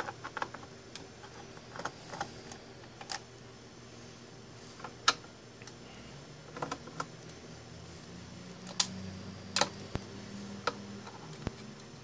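Irregular clicks and taps of a Phillips screwdriver and fingers working the strain-relief screws out of a turntable's base, with a few sharper clicks about five seconds in and again near nine seconds.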